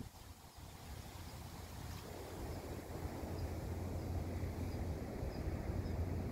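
Wind rumbling on the microphone, a steady low noise that builds gradually, with faint high chirps repeating about twice a second from about three seconds in.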